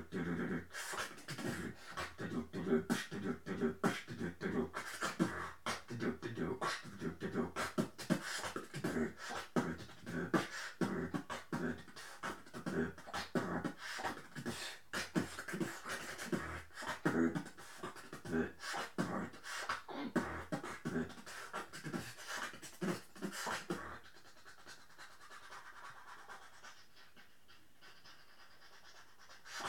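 Drumstep beatboxing into a handheld microphone: a fast, rhythmic stream of mouth-made kick, snare and bass sounds. About six seconds before the end it drops to a quieter pause, then starts again right at the end.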